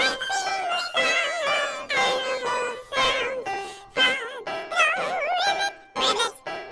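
A children's song with its singing voice electronically distorted, so the words are unintelligible. The pitch warbles and wavers over music in phrases about a second long.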